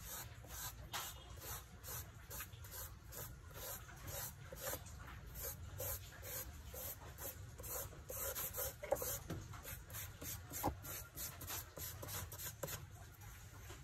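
Charcoal and fingertips rubbing and stroking across drawing paper: a continuous run of short scratchy strokes, about two or three a second.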